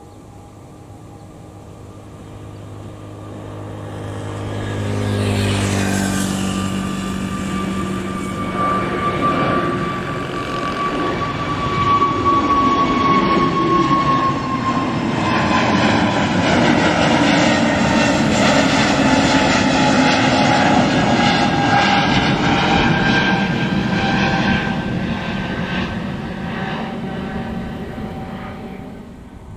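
Airbus A320neo's two CFM LEAP-1A turbofan engines at takeoff power as the jet climbs out and passes overhead. A building rumble with a high fan whine that slides down in pitch as it goes by, then fades near the end.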